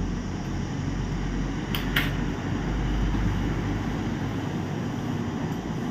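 Steady low machine hum in the room. About two seconds in come two quick clicks as a bare laptop motherboard with its heat sink is handled.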